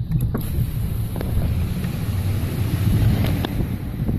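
Wind rumbling and buffeting on a phone microphone in a moving car, with a rushing hiss that comes in about half a second in.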